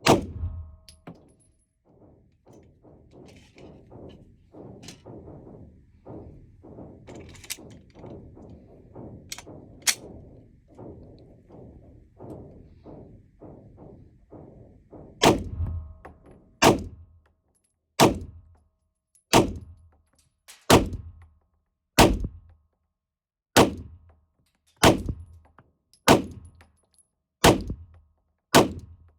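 Glock 19X 9mm pistol firing: one loud shot at the start, then after a long run of much fainter, rapid pops, a steady string of single shots about one every 1.3 seconds.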